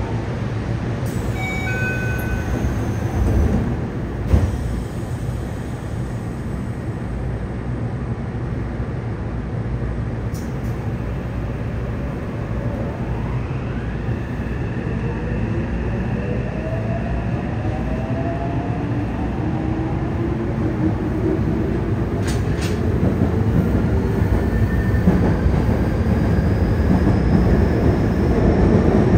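Cabin noise of a Yokohama Municipal Subway 3000N series car pulling away and gathering speed. The Mitsubishi IGBT-VVVF inverter and traction motors whine, rising in pitch, over wheel and track rumble that grows louder toward the end. There is a single knock about four seconds in.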